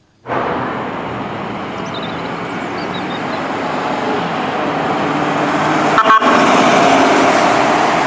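Fire department ambulance on a city street: vehicle and traffic noise slowly growing louder, with a horn sounding.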